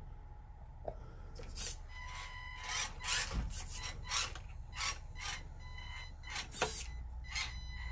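A 1/24-scale RC rock crawler on rubber comp pin tires crawling over rocks: irregular scraping and scrabbling of the tires on stone, over the faint steady whine of its small electric drivetrain. Three knocks as the truck bumps on the rocks, about a second in, near the middle, and a little before the end.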